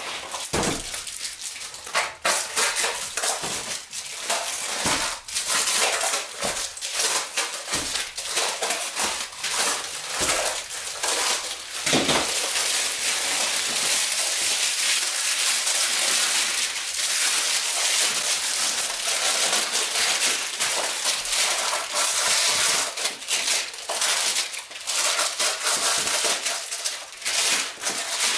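Paper wrapping being torn and crumpled off a new moped tyre: continuous irregular crackling and rustling, with sharp rips.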